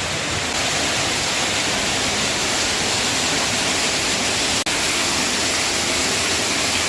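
Waterfall rushing steadily in a narrow rock gorge, a dense even hiss of falling water. It drops out for an instant about four and a half seconds in.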